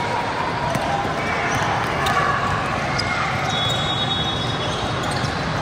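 Basketball bouncing on a gym floor under the chatter of spectators in a large hall, with a short high squeak a little after midway.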